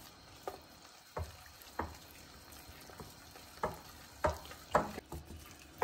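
A whisk stirring thick, oily cake batter in a glass bowl: soft wet slopping and scraping with irregular short knocks.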